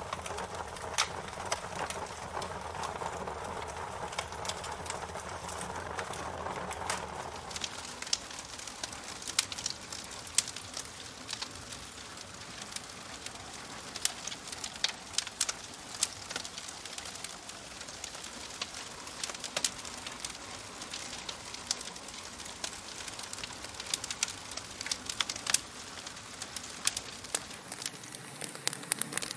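Wood fire crackling, with frequent sharp pops and snaps scattered over a soft hiss. A low, steady rumble under the crackle fades away about seven seconds in.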